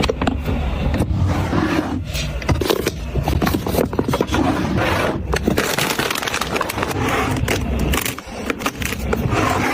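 Close-up handling of an iPhone 14 Pro's packaging: a dense, continuous run of scraping, crackling and sharp clicks.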